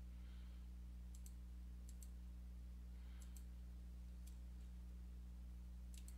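A few faint, sharp clicks, mostly in quick pairs, over a steady low electrical hum.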